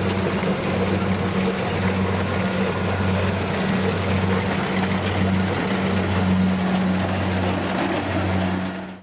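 Kubota DC70 combine harvester running steadily under load while cutting and threshing rice: a constant engine hum with the rush and rattle of the threshing machinery.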